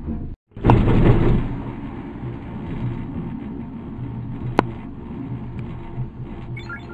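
Gondola cabin riding along the cable: a steady hum with a loud rattling rumble just after the start that fades over about a second, and a single sharp click near the middle.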